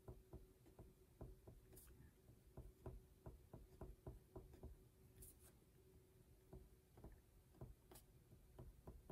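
Near silence with the faint, irregular ticks of a marker pen writing on paper, a few strokes a second, over a faint steady hum.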